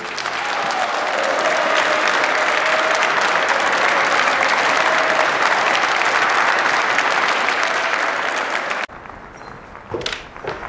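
A large concert audience applauding loudly. The applause cuts off suddenly about nine seconds in, leaving a quieter room with a few soft knocks.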